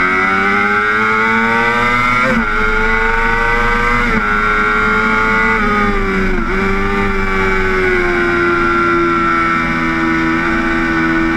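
Honda sport motorcycle engine at racing speed, heard onboard: the revs climb and drop at two upshifts about two and four seconds in, dip with a brief blip about six and a half seconds in, then hold a steady, slowly falling note.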